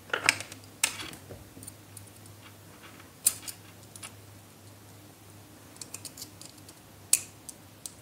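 Scattered small clicks and taps of wire and a small metal screw terminal being handled and tightened with a screwdriver. The sharpest clicks come just after the start, near one second, a little after three seconds and a little after seven, with a run of light ticks around six seconds, over a faint low hum.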